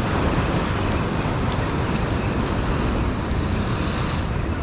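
Surf breaking and washing over the rocks of a jetty, a steady roar of water, with wind buffeting the microphone. The hiss of the water swells briefly about four seconds in.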